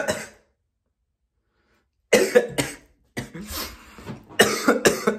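A man coughing hard in repeated harsh fits, the coughs coming in quick bunches from about two seconds in. The coughing is set off by a deep hit of vape smoke.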